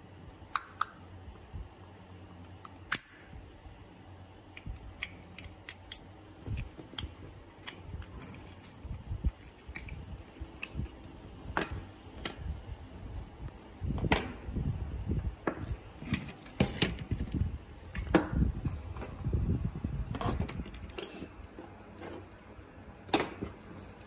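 Sharp plastic clicks and knocks from hands prying open and taking apart a toy remote-control boat's small plastic electronics housing, with its wiring and circuit board handled and set down on a wooden board. The handling gets busier and louder, with a few dull thumps, in the second half.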